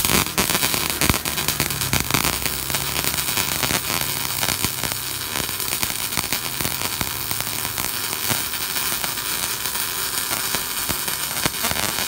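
MIG welding arc from a Fuji 270A wire-feed welder burning on steel plate: a steady, dense sizzling crackle full of fine spatter pops.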